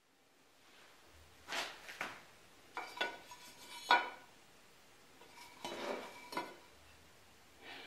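Metal try square clinking and scraping against a freshly planed maple block as it is fitted to the faces: a series of light metallic clinks with a short ring, in two bunches.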